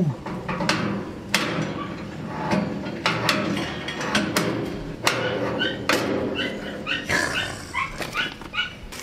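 Sharp metal clanks and knocks from a steel barbecue grill being assembled, its charcoal tray and height-adjusting handle being fitted. From about five seconds in comes a run of short, high-pitched calls.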